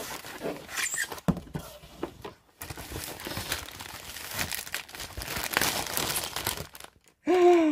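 Plastic packaging crinkling and rustling as it is handled, with small clicks. Near the end, a brief vocal sound falling in pitch is the loudest thing.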